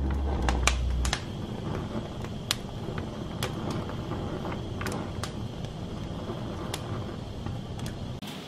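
Gas stove burner flame hissing steadily under poblano peppers, with scattered sharp pops and crackles as the pepper skins char and blister.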